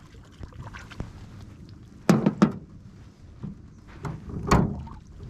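A few sharp knocks and thumps on an aluminum jon boat: two in quick succession about two seconds in, and a louder one near the end.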